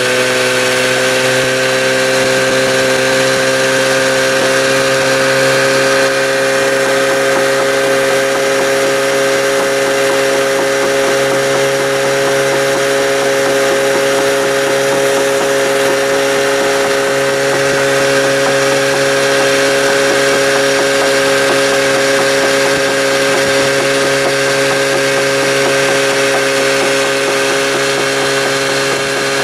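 A motor or engine running at a constant speed, a loud, steady hum and whine over a hiss.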